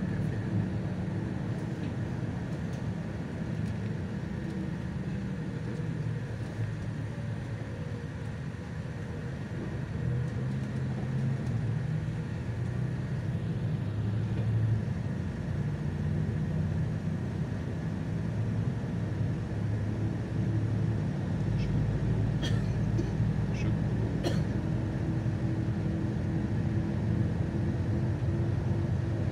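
Solaris Urbino 18 articulated city bus under way, heard from inside: engine and drivetrain running with road rumble. It grows louder about a third of the way in and again about two-thirds through, with a few faint clicks soon after.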